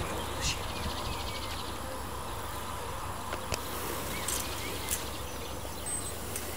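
Faint insect buzzing over a steady low rumble, with a few light clicks from about halfway through as a hand sickle cuts lavender stems.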